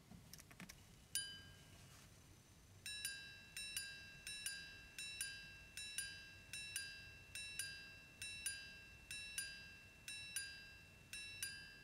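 Henri Berney Ref. 7023 pocket watch's five-minute repeater (Dubois-Depraz module) chiming the time on its gongs. A few sharp clicks come first as the repeater is set off. Then there is a single ringing strike for the hour, and from about three seconds in a long run of quick two-note ding-dong strikes counting the five-minute intervals.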